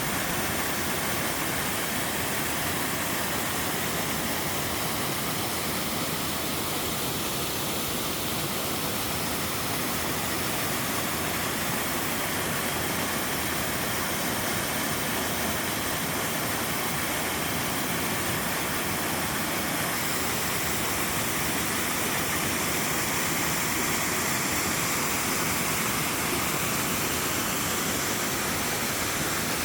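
A waterfall dropping straight down into a mountain stream pool, a steady, even rushing of falling water.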